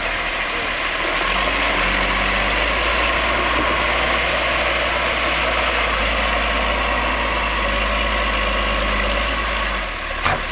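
Backhoe engine running steadily while it digs. A deeper engine rumble comes in about a second in and drops away near the end.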